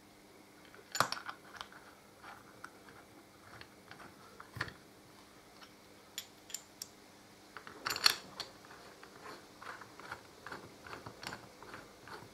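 Sharp metal clicks and taps of steel bolts and a hand socket driver against a chrome brake caliper as its bolts are set in and threaded down by hand. A louder clatter comes about a second in and again about eight seconds in, and a run of light quick ticks follows near the end.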